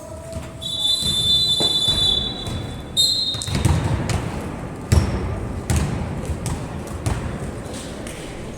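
A referee's whistle: one long blast of about two seconds, then a shorter second blast, followed by a few sharp thuds over a noisy background.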